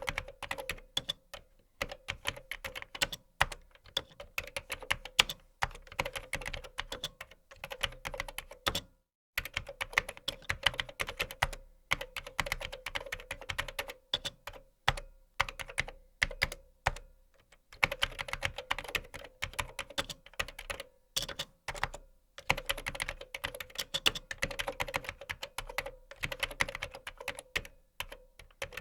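Typing on a computer keyboard: quick runs of sharp key clicks, broken by short pauses, a clear one about 9 seconds in and a sparser stretch near 17 seconds.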